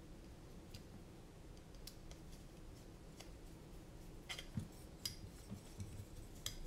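Faint scattered clicks and taps of a hex driver and small screws against a drone racing frame as a screw is worked out, a few sharper clicks about two-thirds of the way through.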